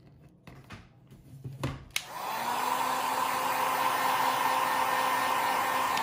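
Handheld heat gun switched on with a click about two seconds in, then blowing steadily with a constant hum while it heats vinyl wrap on a rifle grip.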